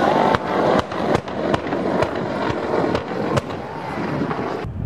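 Airshow pyrotechnic charges going off in a rapid string of about eight sharp bangs, roughly two a second, over a steady rushing background. The fireball and black smoke of the detonations are in view.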